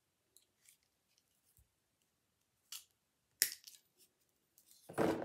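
Cutters snipping off the protruding end of a pin: a few light clicks, then a sharp click and a louder snap about three and a half seconds in, followed by a brief rustle of handling.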